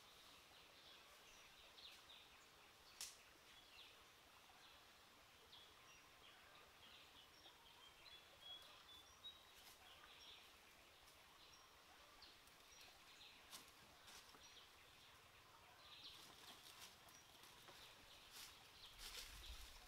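Near silence: faint forest ambience with scattered small bird chirps. Near the end, soft rustling of footsteps through dry leaves.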